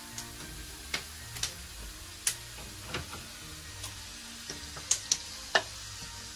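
Pork frying in a wok: a steady sizzle with irregular sharp pops and crackles, the loudest pops about five seconds in.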